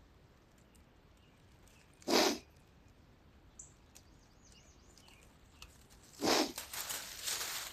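A person sniffling sharply through the nose twice, about two seconds in and again about six seconds in, allergy sniffles. The second sniff is followed by about a second of softer hiss.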